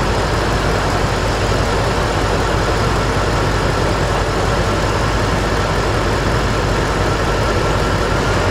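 Ford 5.4-litre V8 of a 2004 Lincoln Navigator idling steadily, heard up close under the hood. It is running with a misfire that is being traced to a failing coil-on-plug ignition coil.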